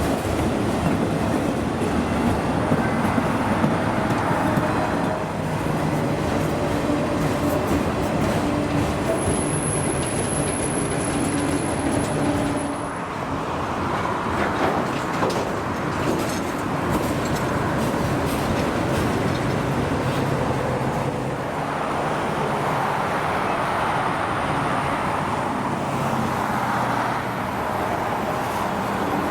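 CSX freight train rolling past, a steady rumble and rattle of wheels on the rail. A thin high squeal sounds for a few seconds near the middle.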